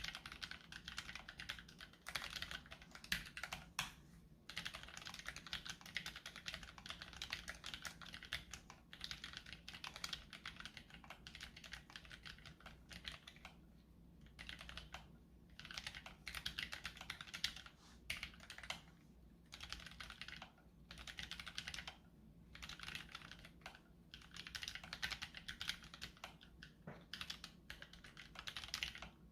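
Keychron K3 low-profile mechanical keyboard with optical red linear switches being typed on in fast, continuous runs of light key clicks, broken by brief pauses.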